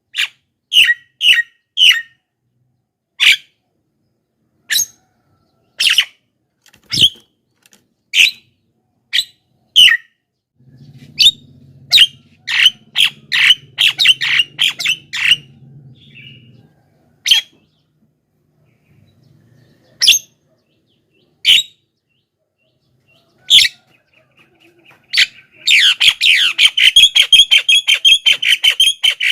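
Javan myna giving short, sharp calls spaced a second or two apart, then breaking into a fast, continuous run of chattering calls near the end.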